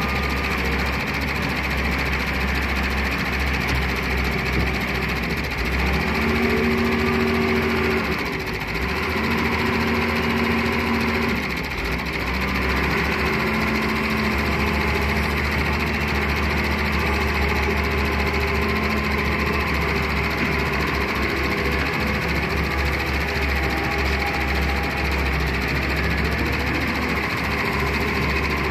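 Diesel engine of a Doosan wheeled excavator running steadily, revving up about six seconds in and holding the higher pitch for a few seconds at a time, with short dips, as the machine works.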